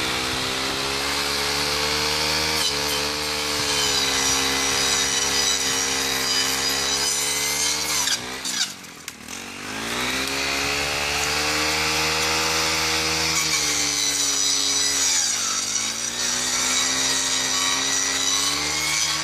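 Two-stroke brush cutter with a toothed saw blade running at high revs while cutting through a large buckthorn trunk; the tooth blade is a bit dull. The revs drop sharply about eight seconds in and dip again briefly about fifteen seconds in, then climb back.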